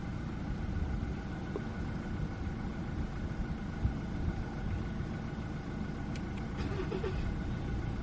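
Vehicle engine idling: a steady low rumble.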